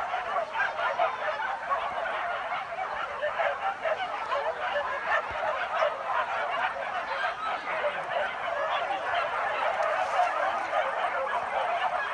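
A pack of hunting dogs yelping and baying in chorus, many voices overlapping in a continuous, unbroken din.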